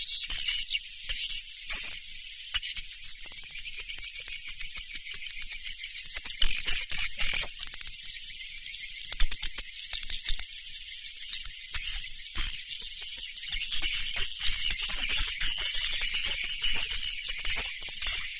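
A dense, continuous chorus of swiftlet calls: many high-pitched buzzy chirps and rattling twitters overlapping without pause. It is a recorded swiftlet call sound of the kind played to draw the birds to a nesting house.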